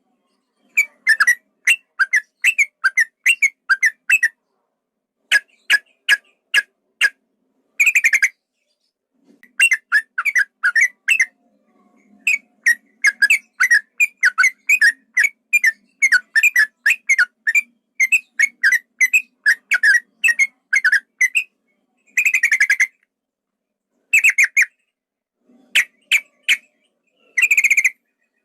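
Yellow-vented bulbul (trucukan) singing long rapid runs of short whistled notes, about four a second, in phrases broken by brief silences, with a few denser, harsher chattering bursts among them.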